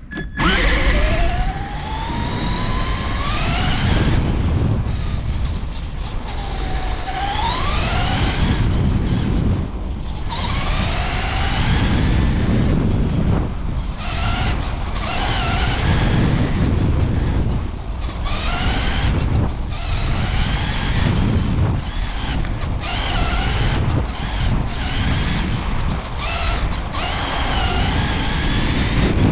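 RC car motor whining, its pitch rising again and again as it speeds up and easing off between runs, over a loud steady rumble of wheels and wind.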